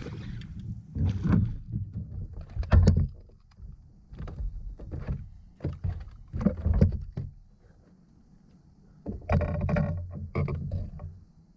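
Irregular knocks, bumps and rustling in a sit-on-top fishing kayak as gear is handled on board, with a denser cluster of knocks near the end.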